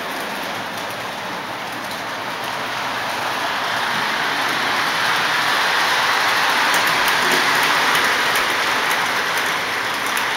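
Lionel and Marx model trains running on their track: a steady rolling rush of wheels and motors that grows louder from about three seconds in.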